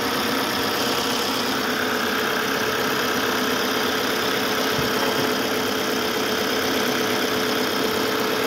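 Jeep Cherokee diesel engine idling steadily while warm, with a steady high whine over it.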